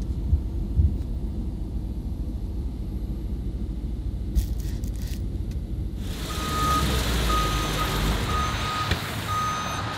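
A car engine idling with a low rumble, heard from inside the cabin. About six seconds in, outdoor traffic noise rises and a vehicle's reversing alarm beeps about five times at an even pace.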